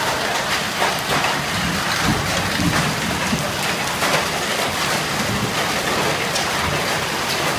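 Hailstorm: hailstones and heavy rain pelting down in a dense, steady hiss, peppered with many sharp clicks and taps of ice striking hard surfaces and the water of a swimming pool.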